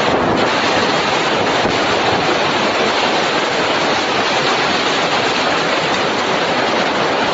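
Storm-force wind and driving rain, a loud, steady rushing noise with no let-up.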